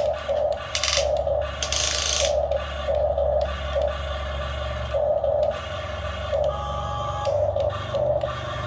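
Small electric motors and gearing of a radio-controlled model excavator running: a steady low hum with a whirring gear noise that pulses in short spurts about once or twice a second, and a few brief bursts of hiss.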